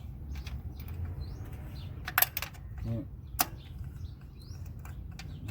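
Two sharp metallic clicks, about a second apart, from a socket and extension as a spark plug is unscrewed by hand from the engine. Small birds chirp over a low steady rumble.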